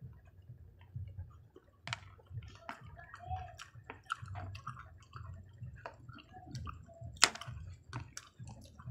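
Wooden chopsticks clicking against hard candy-shelled peanut M&M's and the plate as they are picked at, a run of irregular light clicks with one sharper click about seven seconds in, along with soft chewing.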